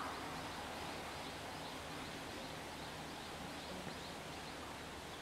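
Steady outdoor background noise with faint, rapid bird chirping through the first three seconds or so.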